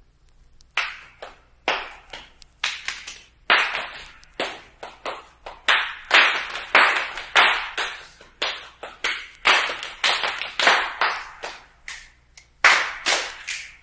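A group of people clapping a rhythm together in unison, in short rhythmic phrases with brief pauses between them.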